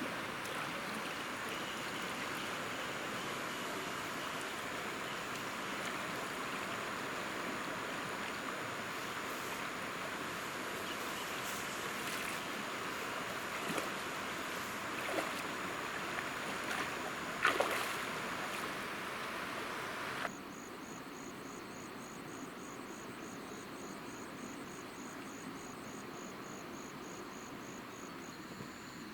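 Stream water running steadily, with a few light knocks. About two-thirds of the way through it cuts off abruptly to a quieter background carrying a rapid, high-pitched pulsing call.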